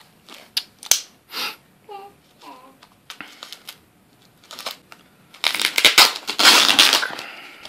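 Foam wrapping sheet and plastic film rustling and crinkling as a parcel is unwrapped by hand: scattered small rustles and clicks at first, then a loud burst of crinkling lasting about a second and a half, a little past two-thirds of the way through.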